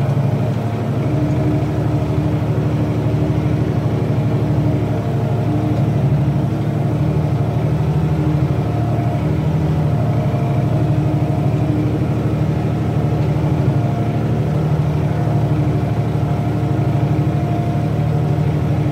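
Tractor diesel engine running steadily under load while pulling a four-furrow plough.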